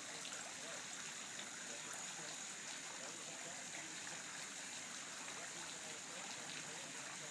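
Steady trickling and lapping of swimming-pool water, with a few faint small splashes.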